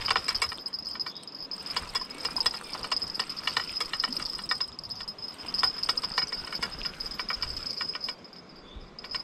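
Spinning reel being cranked to bring in a hooked trout: a fast, uneven ticking from the reel, pausing briefly about eight seconds in. A steady high insect chirring runs underneath.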